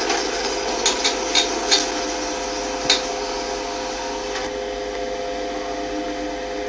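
Service lift running, a steady hum heard inside the car, with five short sharp clicks in the first three seconds: four close together, then one more.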